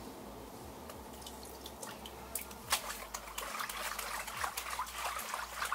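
Water trickling and dripping onto wet concrete, with scattered splashes and drip ticks that get busier and louder from about two and a half seconds in.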